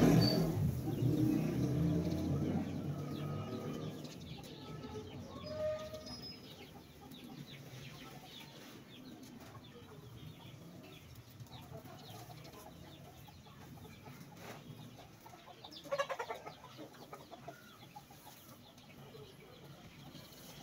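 A passing motor vehicle fades out over the first few seconds. Chickens cluck now and then, with a short burst of pulsing calls about three-quarters of the way through.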